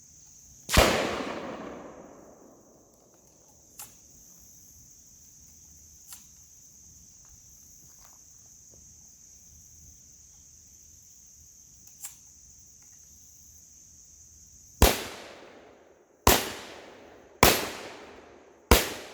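Gunshots: one loud shot about a second in, then four more near the end, a little over a second apart, each with a long echoing tail. A few faint sharp ticks fall in between.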